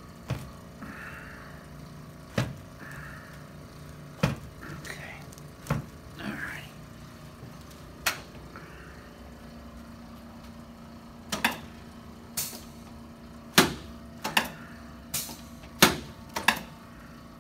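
About a dozen sharp knocks and clicks from a chiropractic adjustment on a treatment table. They come roughly every two seconds at first, then faster and closer together in the last six seconds.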